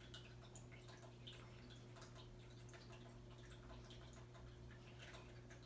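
Faint trickling and irregular dripping of a small tabletop waterfall fountain, over a low steady hum. The fountain's water is running low.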